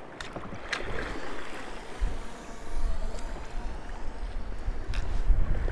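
Kayak paddle strokes splashing in lake water, with a few sharper splashes, and wind buffeting the microphone from about two seconds in.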